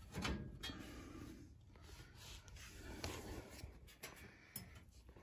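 Faint handling noises: rubbing and scraping, with a light knock just after the start and a few small clicks later on.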